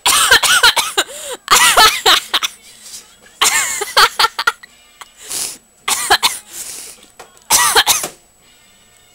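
A person's voice in loud, breathy bursts, about five of them over the first eight seconds, then stopping. After that comes faint music.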